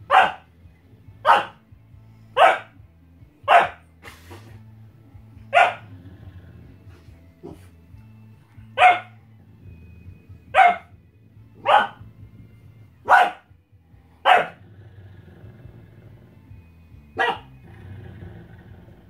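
Australian Shepherd barking sharply about a dozen times, roughly one bark a second, with a longer pause before a last, quieter bark near the end. Background music plays underneath.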